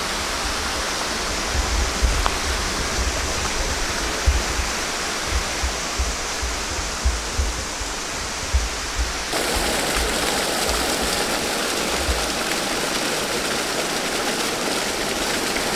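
Steady rush of water from a small jungle waterfall and stream, with irregular low thumps on the microphone through most of it; the sound changes abruptly about nine seconds in.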